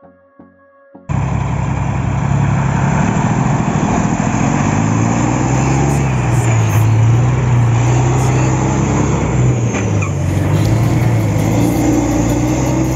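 A few synthesizer notes, then about a second in the loud, steady running of a Volvo FH truck's diesel engine comes in suddenly. The truck is rigged with a sugarcane trailer, and the engine note wavers slightly over a noisy rumble.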